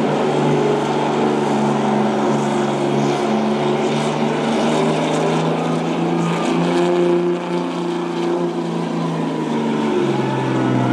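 A dually Ram pickup's engine held at high, steady revs under full load while it drags a weight sled down the pull track. Its pitch dips slightly near the end.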